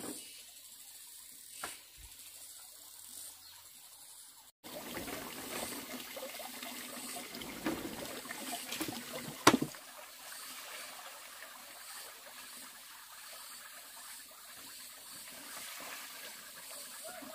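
Water trickling and splashing, with scattered clicks and one sharp knock about nine and a half seconds in. The first few seconds are quiet apart from a few faint clicks.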